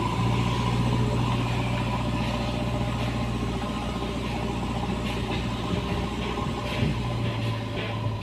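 JCB backhoe loader's diesel engine running at a steady speed with an even low hum.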